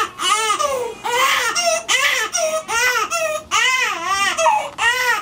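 Newborn baby crying hard in a quick run of short wails, each rising and then falling in pitch.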